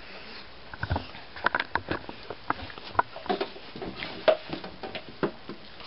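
Irregular light knocks, taps and rustles of things being handled and moved about, in a small room; the sharpest knock comes about four seconds in.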